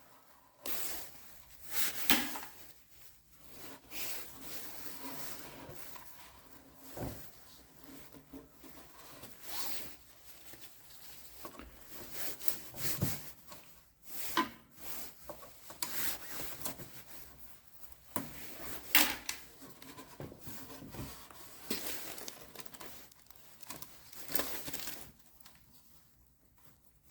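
Irregular rubbing and scraping strokes with occasional sharp clicks from hands working on engine parts.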